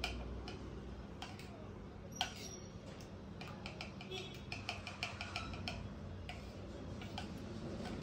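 A spoon clicking and scraping against a small cup while stirring thickening bird hand-feeding formula, as an irregular run of light ticks.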